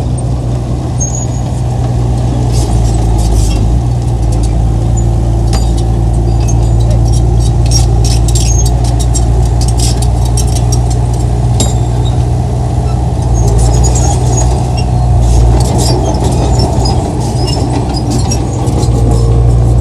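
Heavy diesel earthmoving machine running steadily under load, a deep constant engine drone, with many sharp metallic clicks and squeaks scattered over it.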